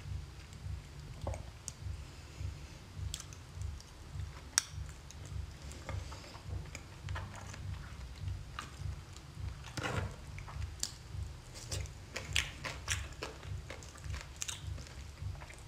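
Close-miked chewing of raw salmon sashimi: a steady rhythm of low thumps with wet mouth clicks and smacks, and a longer squishing sound about ten seconds in.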